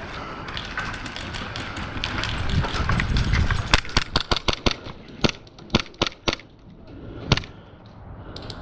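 Airsoft guns firing a string of sharp shots, about ten over a few seconds, several in quick succession, then one more shot, over a low rumble of movement and wind on the microphone.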